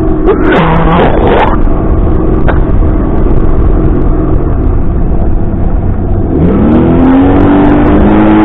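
Boat outboard motor running steadily, then speeding up with a rising pitch about six and a half seconds in as the throttle is opened.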